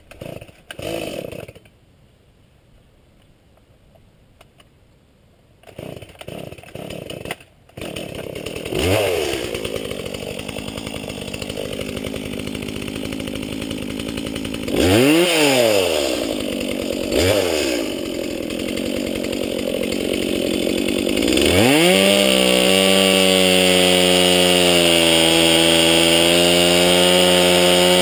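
Stihl MS170 two-stroke chainsaw sputtering in short bursts, then catching about eight seconds in and running. It is revved up and back down three times, then held at high revs for the last six seconds.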